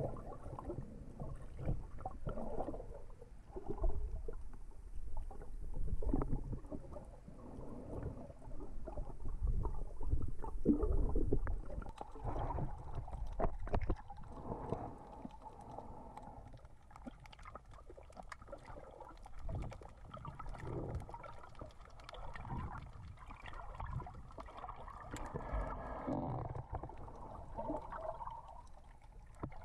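Muffled underwater sound from a camera held below the surface while snorkeling: water gurgling and sloshing, with irregular low surges and small clicks.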